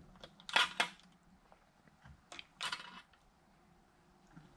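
Eastwood tabletop shrinker crunching a strip of sheet steel twice, about two seconds apart, as its handle is pushed down. Each press is a short clattering crunch as the jaws grip and gather the metal, shrinking the edge so the strip curves into a fender contour.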